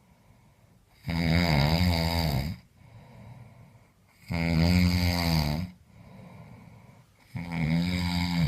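Heavy, harsh snoring: three long, loud, rattling snores about three seconds apart, with quieter breaths out between them.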